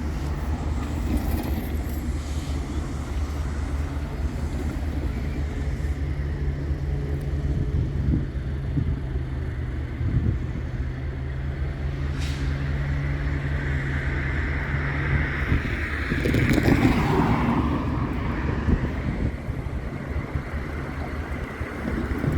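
A steady low engine drone with a hum that cuts out about fifteen seconds in, followed by a louder rush of noise.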